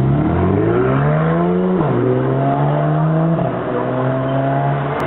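Sports car engine accelerating hard, its note climbing through a gear, dropping sharply at an upshift, and climbing again; two upshifts in all, the first about two seconds in and the second about a second and a half later.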